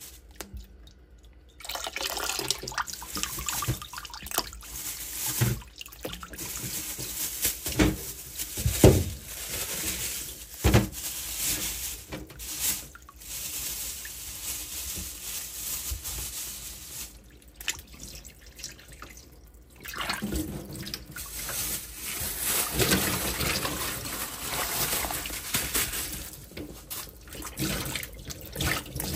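Kitchen tap running into a glass bowl of figs in a stainless steel sink, the stream splashing over the fruit as it is rinsed by hand. The water starts about a second and a half in, with a few sharper splashes and a short easing of the flow partway through.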